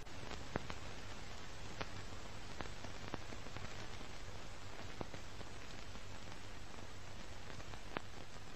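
Steady static hiss over a low hum, with faint scattered crackling clicks.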